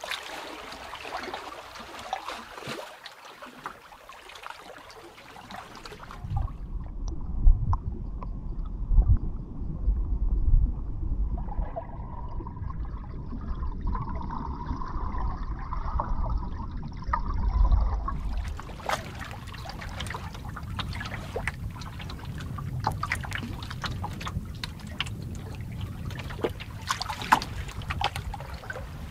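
Open lake water lapping and trickling, with many small sharp clicks and ticks. From about six seconds in until about eighteen seconds the sound turns muffled, with a strong low rumble, before the clear lapping and clicking returns.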